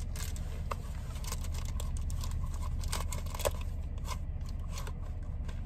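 Scattered clicks, scrapes and rustles of plastic packaging and a small vinyl figure being handled, over a steady low hum inside a car.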